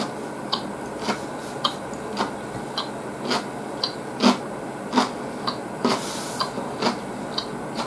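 Mouth sounds of someone chewing noodles: short wet clicks and smacks, about two a second.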